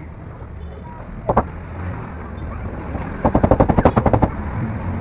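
A single sharp knock, then near the end a rapid run of about a dozen sharp knocks in about a second, roughly ten a second, over a steady low hum.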